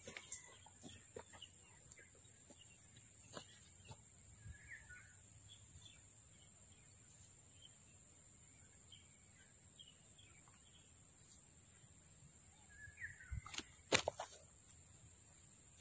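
Quiet outdoor ambience: scattered faint bird chirps over a steady high-pitched hiss, with a few handling clicks and one sharp click about fourteen seconds in.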